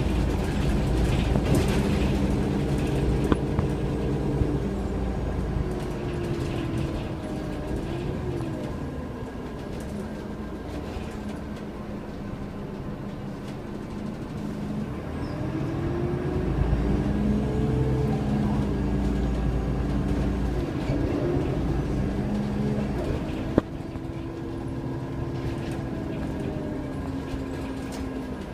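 Irisbus Agora Line city bus's diesel engine and drivetrain heard from inside the passenger cabin, pulling harder near the start and again about halfway through, with the pitch rising and falling, and easing off in between. A sharp click about three-quarters of the way through.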